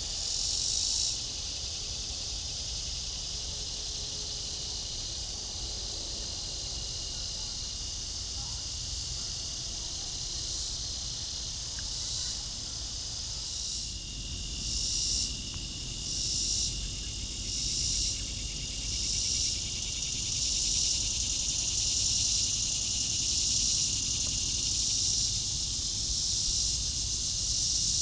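Evening insect chorus: a steady high trill under a louder, higher buzzing chorus. Past the middle the buzzing swells in waves about every second and a half, then runs together into a near-continuous buzz, over a low background rumble.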